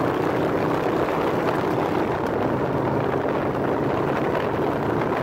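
1988 Yamaha Virago 1100's V-twin engine running steadily at highway cruising speed, with wind rushing over the microphone.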